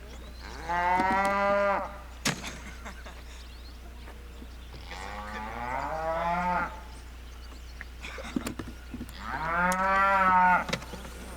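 A cow mooing three times, each call lasting one to two seconds, with a short sharp click just after the first.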